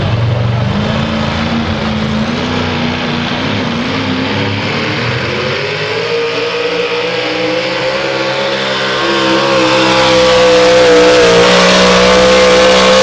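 Modified pulling pickup truck's engine at full throttle, dragging a pulling sled. The pitch climbs over the first few seconds, then holds high and grows louder near the end.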